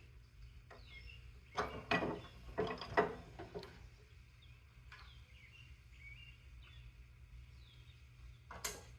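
Small birds chirping over a steady low hum, with a quick run of sharp knocks and clatters about one and a half to three and a half seconds in and one more knock near the end.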